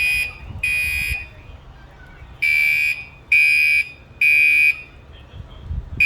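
Fire alarm sounding the temporal-three evacuation signal: loud, high-pitched beeps in groups of three, each about half a second long with short gaps between them, and a pause of about a second and a half between groups.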